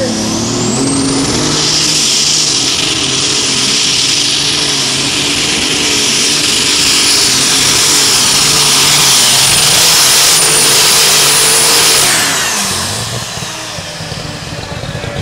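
John Deere light super stock pulling tractor at full throttle down the track, its engine running flat out with a high turbocharger whine that climbs in the first second or two and then holds. About twelve seconds in, the whine and engine fall away as the pull ends.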